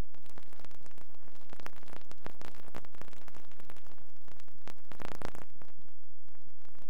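Steady background static and hiss with scattered crackle. There is no distinct sound source.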